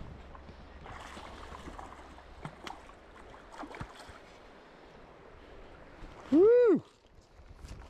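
A hooked rainbow trout splashing and swirling at the surface of a shallow river, with short sharp splashes over the steady rush of the water. About six seconds in comes a short, loud whoop that rises and falls in pitch.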